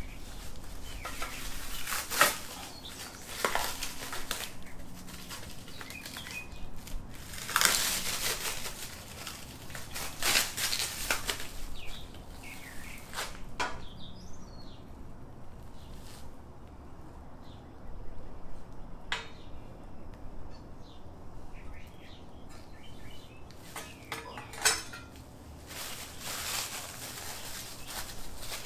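Packaging rustling and small hard parts being handled, with scattered sharp knocks and clinks at irregular moments, the loudest about 2, 8, 10 and 25 seconds in.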